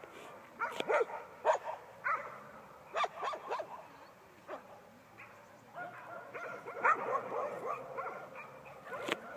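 Young German Shepherd whining and yipping in short, high calls that come in clusters, with a lull around the middle.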